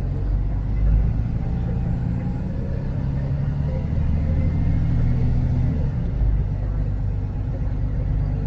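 Diesel engine of a T360 concrete mixer truck running at low speed, heard from inside the cab: a steady low rumble whose pitch shifts slightly about six seconds in.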